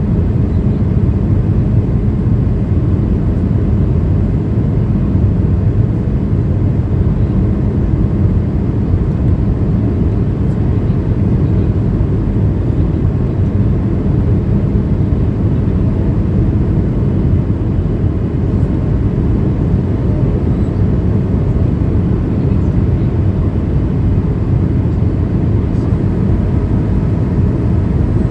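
Steady cabin noise of a Boeing 737-800 in descent: a deep, even rumble of its CFM56 engines and the airflow, heard from inside the passenger cabin.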